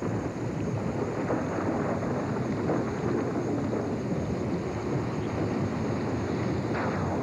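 Steady rushing, rumbling noise of a storm wind, swelling up at the start and then holding.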